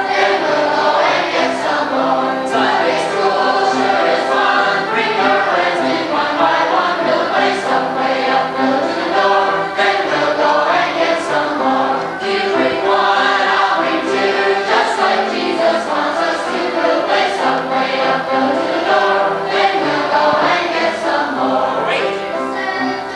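A choir of children and teenagers singing an upbeat Sunday school song together.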